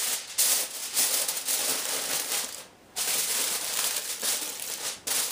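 Sheet of aluminium foil crinkling and crackling as it is pressed and crimped around the rim of a roasting pan, with a brief pause about two and a half seconds in.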